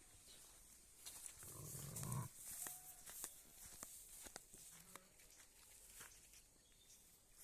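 Sheep in a flock, faint overall: one louder, low call from about a second and a half in to a little past two seconds, then a few faint short calls, with scattered light clicks.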